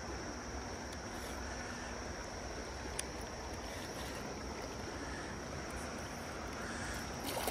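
Steady rush of river water flowing past, with a single faint click about three seconds in and some louder splashing starting just before the end.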